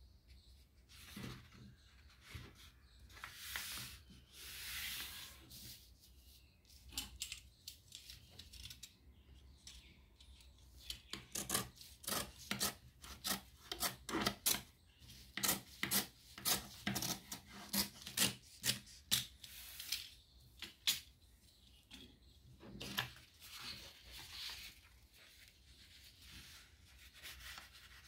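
A sheet of origami paper being slid, folded and its creases rubbed down flat: soft sliding first, then a run of quick sharp rubbing strokes, roughly two a second, through the middle, easing off to a few softer ones near the end.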